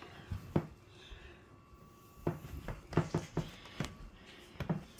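A scattered series of light knocks and taps, about a dozen over a few seconds, in a quiet small room.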